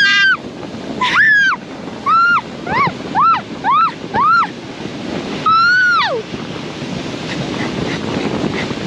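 A person shrieking again and again: about eight short, high-pitched cries that rise and fall, the last one longer and sliding down, then stopping about six seconds in. Under them is a steady rush of wind on the microphone and snow spray as the towed boat slides over the snowy field.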